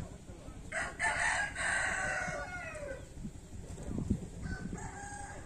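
A rooster crowing once: a long call of about two seconds that falls in pitch as it ends, followed by a fainter call near the end.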